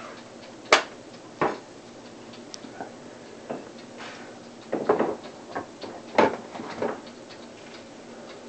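Cockatiel making short, sharp click-like chirps over and over at irregular intervals, a new repeated call the bird has just started. The loudest comes about three-quarters of a second in, with a quick cluster around the middle.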